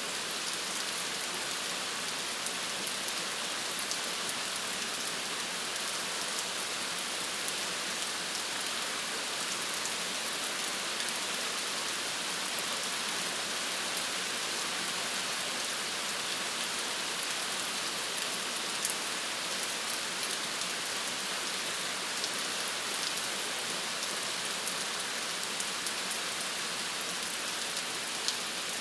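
Steady rain falling on hard surfaces: an even hiss with scattered faint drop ticks.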